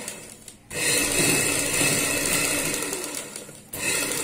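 Domestic sewing machine running steadily as it stitches a seam through fabric and buckram. It starts about a second in, stops briefly near the end, then starts again.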